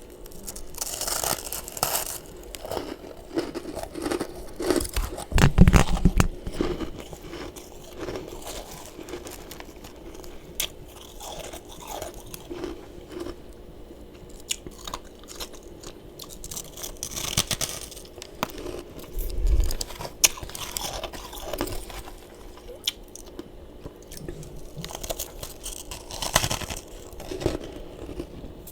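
Close-up crunching and chewing of freezer frost in the mouth: repeated bites into the powdery ice, with irregular crackling crunches, louder ones around a fifth of the way in and again near the end.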